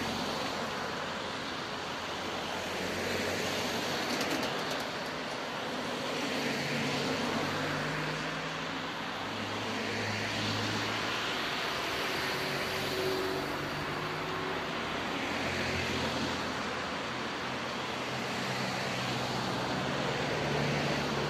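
Road traffic: cars passing one after another on a wet road, tyre noise and engine hum swelling and fading every few seconds as each goes by.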